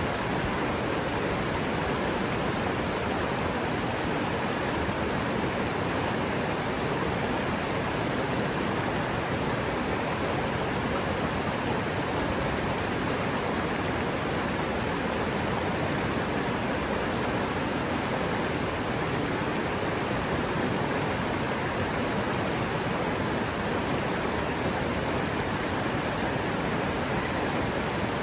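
River water running over rocks: a steady, even rush with no change.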